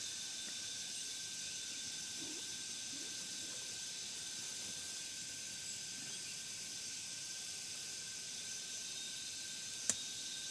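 Steady, high-pitched chorus of forest insects, several even tones held over a hiss, with one sharp click near the end.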